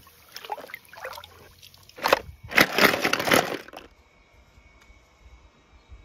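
Water sloshing and splashing as a hand swishes through soapy water in a plastic tub, in irregular bursts that are loudest midway and stop abruptly about four seconds in. After that, only a faint background with a steady high tone remains.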